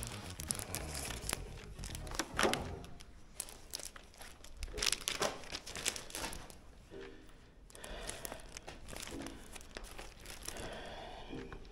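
Crinkling and rustling handling noise, with irregular clicks and crackles throughout.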